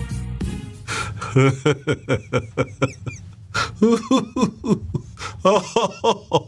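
Intro music ends in the first second, then a man laughs in a long run of short, breathy bursts, growing louder from about four seconds in.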